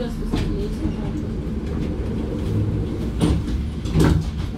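GT8N tram running on its rails, a steady low rumble with a hum, and two sharp knocks about 0.7 s apart near the end.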